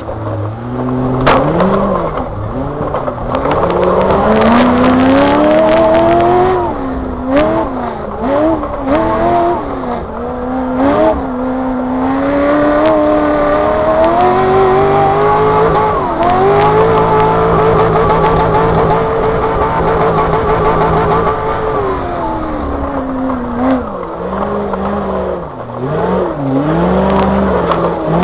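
A rock racing buggy's engine revving up and down over and over, heard from the cockpit. Midway through it is held high and steady for several seconds, with a few sharp knocks from the chassis.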